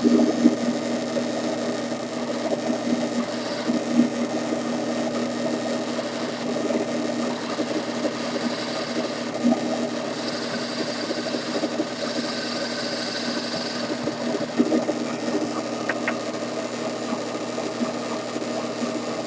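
Drill press motor running steadily, drilling shallow holes in wooden knobs, with a few brief louder moments as the bit cuts.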